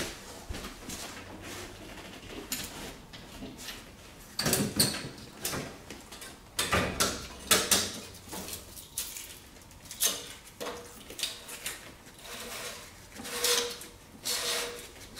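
Irregular knocks, clinks and scrapes of sheet-metal parts of a hot-water baseboard heater being handled and fitted by hand.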